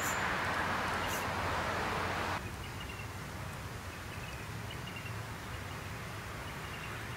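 Outdoor ambience. A steady hiss cuts off abruptly about two and a half seconds in, leaving a low rumble under faint, short bird chirps that come in small groups every second or so.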